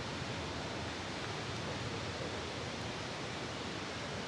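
Steady, even rushing noise of outdoor ambience in wet weather, with no change in level. No crossing bell and no train can be heard.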